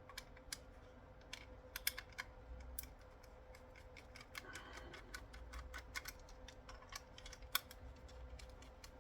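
Faint, irregular clicks and taps of a small plastic radio-control handset being handled and taken apart, over a faint steady tone.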